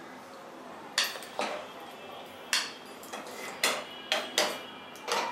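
A plastic spatula knocks and scrapes against a nonstick pan and a ceramic serving bowl as cooked greens are spooned from one into the other. It makes about eight short, uneven clinks, some with a brief ring.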